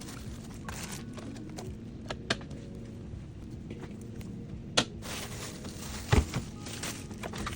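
Food containers and jars being handled and set down on fridge shelves: scattered clicks and knocks, with a heavier thump about six seconds in.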